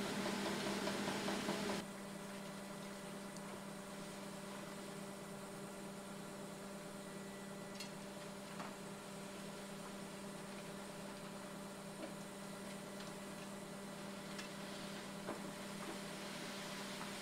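Concrete mixer truck running steadily as concrete goes down its chute into the septic tank pit, a constant engine hum that drops to a quieter level about two seconds in. A few faint knocks come through it.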